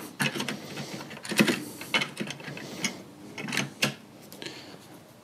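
Plastic cover being fitted onto an Intervolt DCC Pro DC-DC charger by hand: a scattered run of light plastic clicks and knocks, about seven over the first four seconds.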